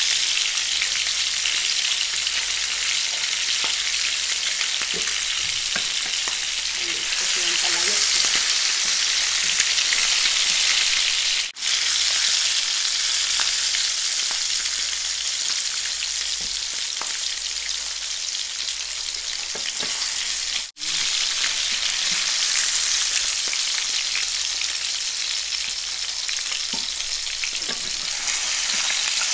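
Salmon steaks sizzling steadily as they fry in oil in a pan, with light clicks and scrapes of a wooden spatula turning them. The sizzle cuts out for an instant twice near the middle.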